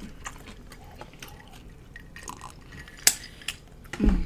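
Close-miked wet mouth and eating sounds with scattered small clicks, a sharp click about three seconds in, and a low thump near the end.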